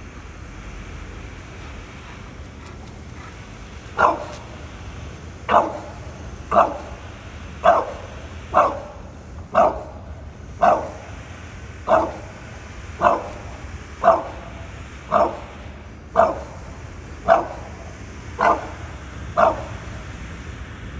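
English bulldog barking up into a tree: about fifteen short single barks, roughly one a second, starting about four seconds in.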